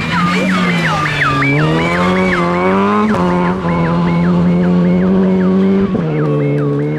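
Opel Adam rally course car driving past with its engine revving through several gear changes. Over the engine, its electronic siren warbles between a high and a low note about three times a second.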